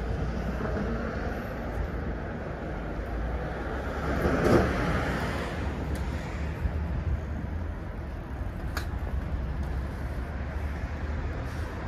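Street traffic: a steady hum of road noise with a low rumble, and a vehicle passing close, swelling and fading about four and a half seconds in.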